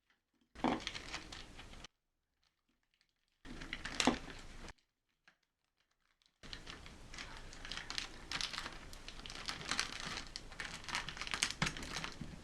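Crackling, rustling handling noise, like something being crumpled or crinkled, in three spells: two short ones in the first five seconds, then a longer one of about six seconds.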